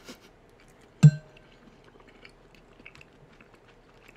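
A metal spoon gives one sharp clink with a short ring about a second in. Faint clicks and chewing follow.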